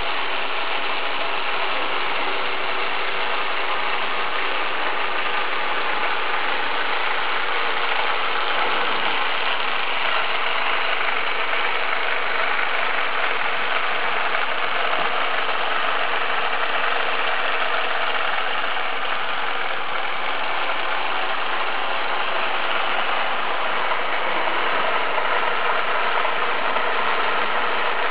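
Small electric motor and gear drive of an HO-scale model bobsleigh ride running, a steady, unbroken mechanical whir and rattle.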